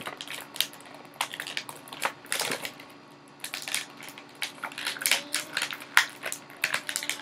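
Toy packaging being handled and opened: irregular crinkling and crackling of plastic and cardboard, with small clicks.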